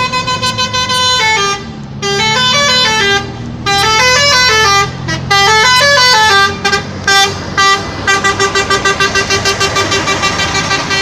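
Telolet musical horn of a bus playing its multi-note tune: held horn notes stepping up and down in pitch in several phrases, then breaking into rapid short toots, about four a second, for the last few seconds.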